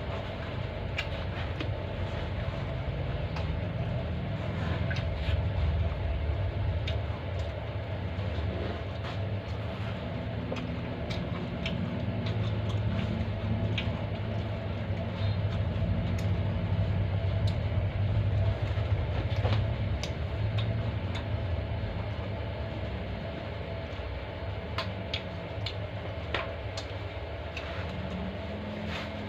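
Close-miked eating sounds, with scattered sharp mouth clicks and smacks, over a steady low rumble and hum.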